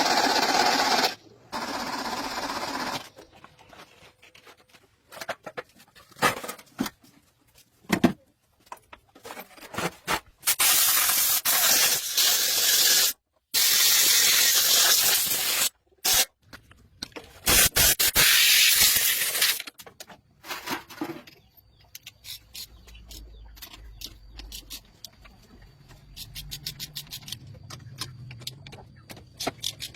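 Several bursts of compressed-air hissing, each lasting one to a few seconds, that start and stop abruptly. Scattered clicks and knocks fall between the bursts, and a run of quick light ticks comes near the end.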